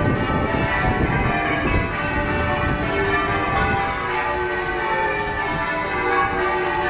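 Durham Cathedral's church bells ringing, many bells struck one after another so their tones overlap in a continuous sequence.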